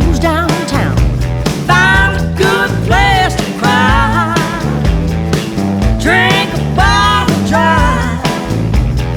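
Band music with a rock groove and a steady beat. A pitched lead melody comes in short phrases that bend in pitch.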